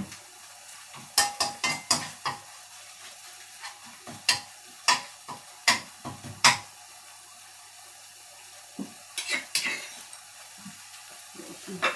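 A metal spoon stirring and scraping curry paste frying in a metal wok, with sharp clinks against the pan every second or so over a low steady sizzle. About nine seconds in comes a quick run of knocks.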